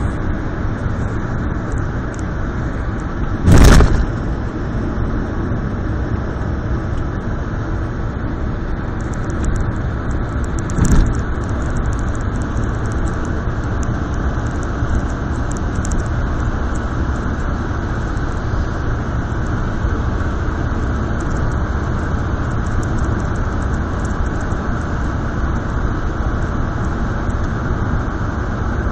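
Steady road and engine noise heard from inside a moving car's cabin. A brief loud thump comes about three and a half seconds in, and a smaller one about eleven seconds in.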